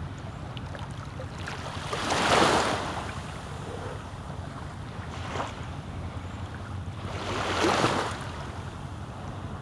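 Small waves washing onto the beach, one swell about two seconds in and another near the end, over a steady rumble of wind on the microphone.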